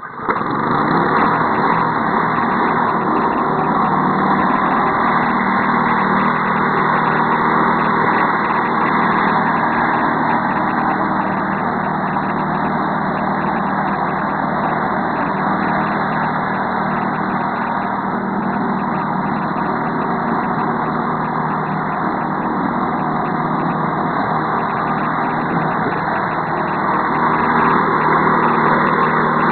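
Walk-behind road sweeper's Zongshen 6.5 hp single-cylinder four-stroke engine running steadily under load as it drives the rotating bristle brush through dirt, getting slightly louder near the end.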